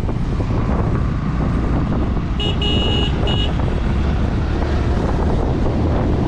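Wind buffeting the microphone over the rumble of a moving motorcycle and heavy dump trucks on the road. About two and a half seconds in, a high-pitched vehicle horn beeps three times in quick succession.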